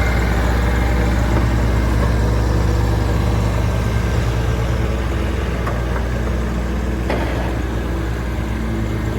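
2014 Bobcat S450 skid steer's diesel engine running steadily at idle, with a couple of light clicks about six and seven seconds in.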